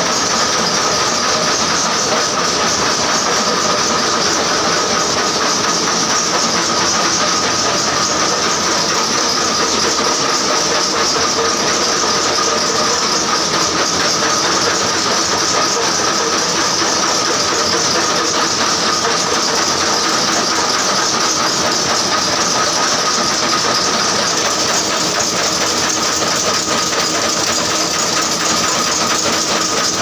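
Several flywheel-driven screw-making machines running together: a loud, steady mechanical clatter with a constant high ringing tone and hiss over it.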